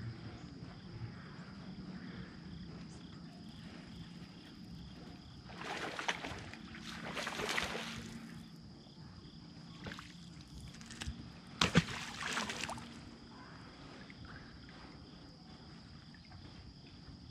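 A hooked bass splashing and thrashing at the water's surface beside the boat, in a few noisy bursts of splashing, followed a few seconds later by a sharp knock, the loudest sound, and another short splash, over a faint steady hum.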